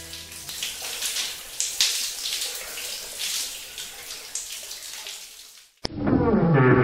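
Water from a shower head pouring and splashing, a steady hiss that fades out about five and a half seconds in. A click follows, then a loud, low, horn-like music note starts near the end.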